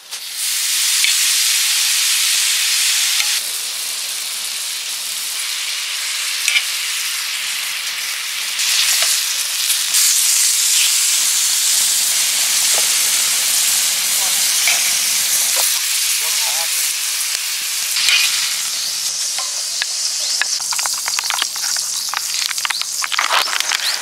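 Thin slices of beef brisket sizzling on a hot iron griddle over a wood fire. The sizzle starts suddenly and holds steady.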